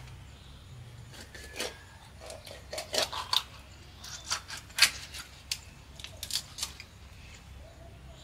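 A boti, a foot-held curved blade, scraping and cutting through a rohu fish: a string of short, sharp, irregular scrapes and clicks. The strokes begin about a second in, the loudest comes near the middle, and they stop about a second before the end.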